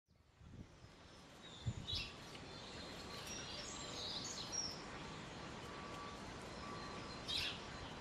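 Small birds chirping: a few short high calls and a brief twittering run over steady outdoor background noise, with a couple of low thumps about two seconds in.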